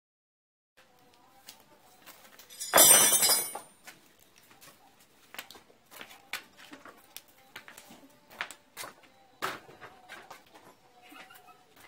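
A short loud clatter of hard objects about three seconds in, then scattered light knocks and clicks of metal as a small child's bicycle and hand tools are handled on a concrete floor.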